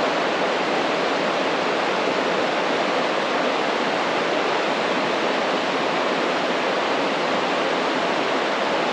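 River rapids rushing over rocks below small waterfalls: a loud, steady roar of white water.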